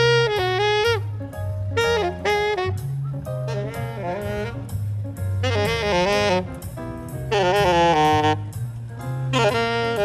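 Jazz background music: a saxophone playing a melody in short phrases over a bass line whose notes change about twice a second.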